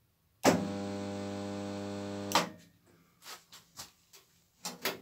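Homemade spotter (stud welder) built from microwave-oven transformers humming steadily for about two seconds as it passes current through the steel door skin at the weld seam, switching on and off abruptly. A few light clicks follow.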